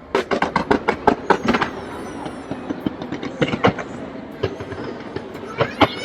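New Year fireworks going off in rapid, crackling volleys of sharp bangs, thickest in the first two seconds and again in short clusters about three and a half and five and a half seconds in.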